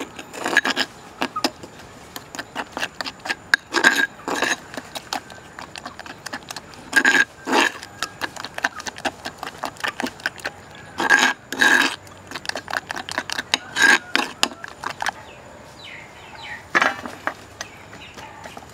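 Metal spoon stirring a thick flour batter in a small bowl, clicking and scraping against the bowl several times a second, with louder clinks on the bowl every few seconds.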